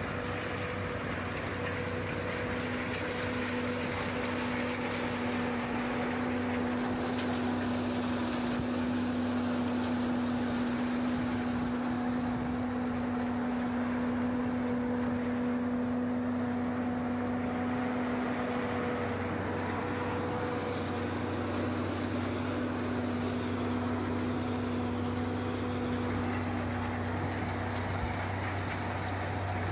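TAGRM M4800 windrow compost turner running steadily as it churns a windrow of landfill waste, its engine and turning rotor making an even mechanical hum with a constant low whine.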